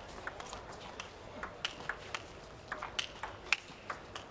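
Table tennis rally: the celluloid ball clicking off the table and the players' rubber-covered bats in quick alternation, several sharp ticks a second.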